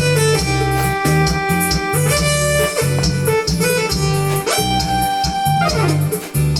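Electronic keyboard playing an instrumental interlude: a lead melody with sliding pitch bends over a steady, pulsing bass accompaniment. It eases off slightly near the end.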